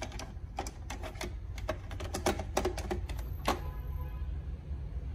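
Hard plastic parts of a Tefal ZC420 slow juicer clicking and knocking as the fine juicing screen is fitted and twisted in the juice bowl and then lifted out: an irregular run of light, sharp clicks.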